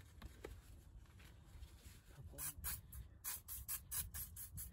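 WD-40 aerosol can spraying penetrating oil onto the rear differential's plugs in a quick run of short hissing squirts, about four a second, starting a little over two seconds in.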